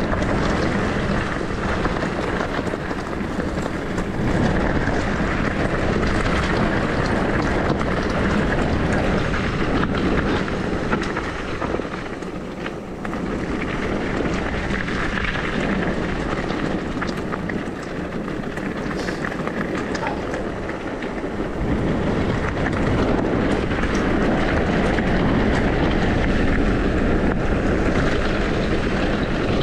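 Wind rushing over the microphone, mixed with the rolling and rattling noise of an e-bike riding downhill on a trail, steady throughout and dipping briefly about twelve seconds in.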